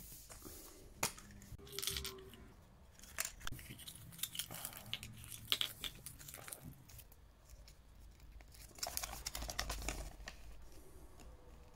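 Close handling of a Kinder Surprise egg's plastic capsule and folded paper leaflet: crinkling and tearing with a few sharp clicks, then a longer rustle as the paper instruction leaflet is unfolded about nine seconds in.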